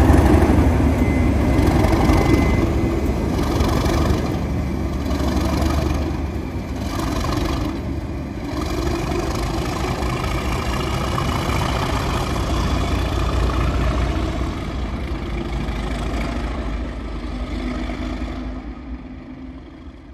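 Class 37 diesel locomotive's English Electric V12 engine running as it moves off, its sound fading away toward the end.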